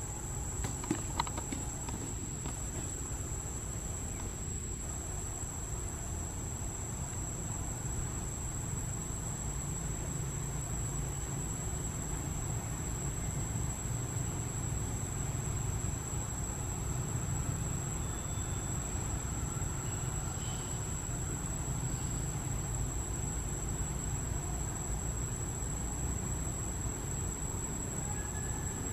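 Insects droning: one steady, high-pitched, unbroken tone over a low rumble, with a few faint clicks about a second in.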